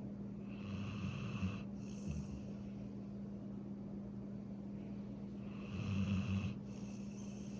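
Sleeping golden retriever snoring: two snoring breaths about five seconds apart, over a steady low hum.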